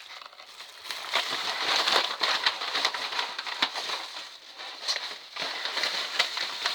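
Rustling and crinkling of packaging as things are rummaged through, with many small clicks and crackles.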